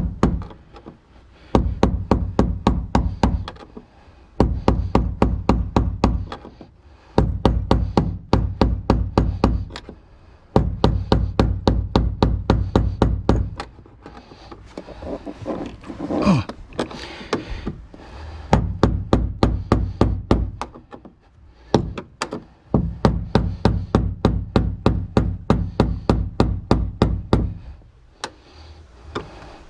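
Rapid runs of sharp taps, several a second, from a screwdriver driving a fuel pump's lock ring clockwise to tighten it onto the tank, with short pauses between runs.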